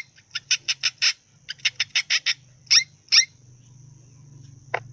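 Hamster squeaking: a string of very short, high squeaks in two quick runs, then two more. They stop a little over three seconds in.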